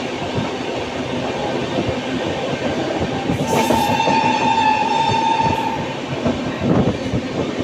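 Moving passenger train heard from an open coach doorway: steady running noise of the coach wheels on the rails, with a few clacks near the end. About three and a half seconds in, a shrill steady tone sounds for about two and a half seconds.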